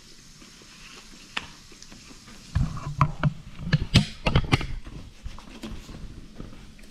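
Camera handling noise: the camera is gripped and moved, giving a run of knocks, clicks and rubbing about two and a half seconds in that lasts about two seconds, with a few faint clicks before it.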